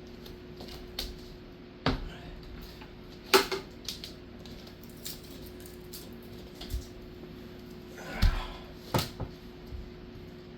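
Scattered knocks and clunks from hands working at the pipes and bucket under a kitchen sink, about four louder ones spread through, over a faint steady hum.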